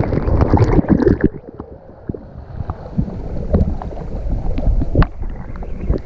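Water slide splashdown: a loud rush of spray and splashing water that dies away about a second in, followed by quieter sloshing and scattered splashes as the rider moves through the shallow run-out pool.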